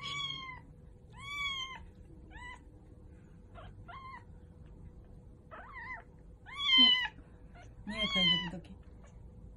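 A very young kitten mewing repeatedly: about eight short, high, thin cries that rise and fall in pitch, the loudest two near the end.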